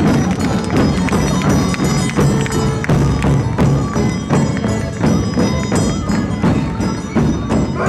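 Many large metal bells worn by Sardinian carnival masks clanging and jangling together in an irregular rhythm, with a constant metallic ringing.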